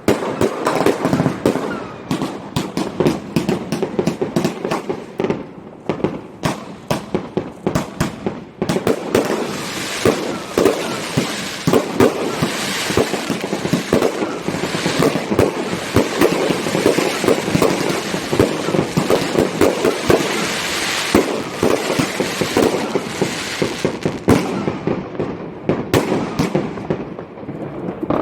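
Fireworks going off without a break: a dense run of bangs and crackling firecrackers, many overlapping.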